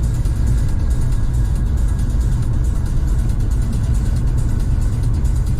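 Loud, steady low rumble with a faint hiss above it, without pauses.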